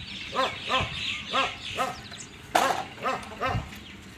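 A dog barking repeatedly in short barks, about two or three a second, with one louder bark a little past halfway.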